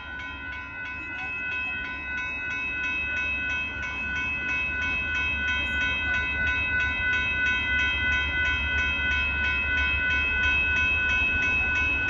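Railroad grade-crossing bell ringing rapidly and evenly, several strikes a second, over the low rumble of the Amtrak Texas Eagle passenger train rolling through the crossing. The rumble slowly grows louder.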